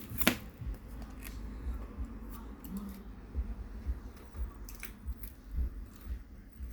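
Small clicks, taps and rustles of hands working a smartphone's back cover and its adhesive tape, with one sharp click about a quarter second in and a few lighter clicks later.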